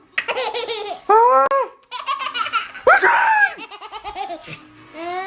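Baby laughing hard in a string of high-pitched bursts, about five in quick succession, then quieter near the end.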